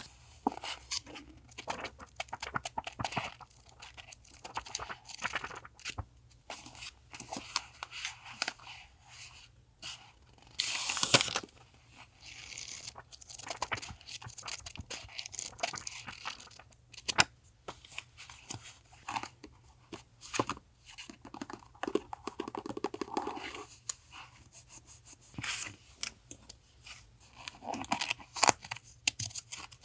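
Paper stationery and its packaging being handled up close: rustling, crinkling and tearing of paper, broken by many short taps and clicks, with a louder burst of rustling about a third of the way in.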